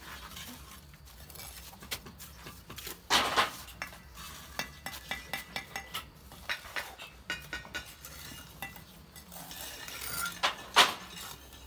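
Steel bricklaying trowel scraping and tapping on mortar and bricks: many small clinks, with a louder scrape about three seconds in and another near the end.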